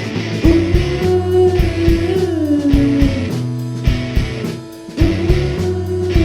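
Psychedelic rock band playing live: drums keeping a steady beat under bass and electric guitar. A long held note bends downward about two seconds in and again near the end.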